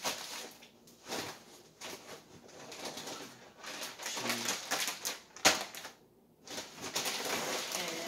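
Plastic food packaging rustling and crinkling as packaged groceries are taken from a bag and set down on a wooden table, with one sharp knock about five and a half seconds in.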